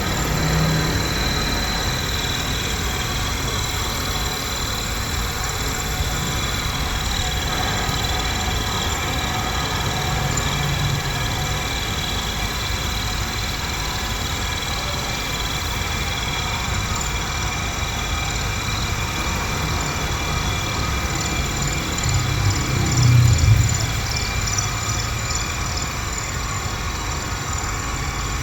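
CNC machine running steadily while cutting silver, a continuous machine noise with a faint high whine. A louder low hum swells briefly a few seconds before the end.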